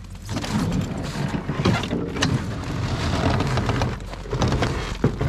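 Footsteps crunching on packed snow and handling noise as the camera is carried around a parked snowmobile, with irregular scuffs and clicks over a low steady hum.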